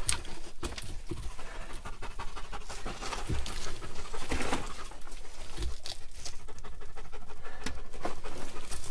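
A dog panting steadily, with scattered knocks and scrapes.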